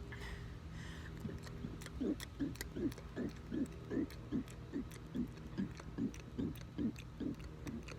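A man burping in a rapid, even string of short burps, about two and a half a second, starting about two seconds in.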